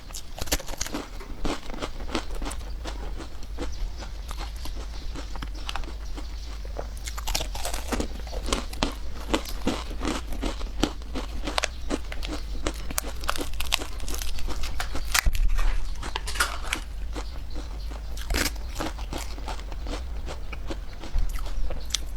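A person biting and chewing food close to the microphone, with many sharp, irregular crunching clicks.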